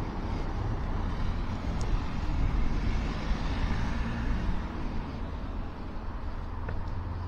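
Town street traffic: cars running and passing, a steady low rumble of engines and tyres with a passing swell around the middle.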